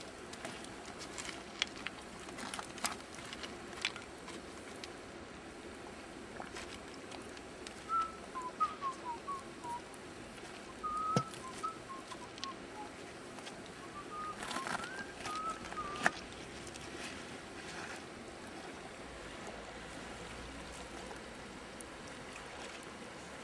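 Campfire crackling with scattered sharp pops over the steady rush of a river. Around the middle come a few short runs of high chirping notes.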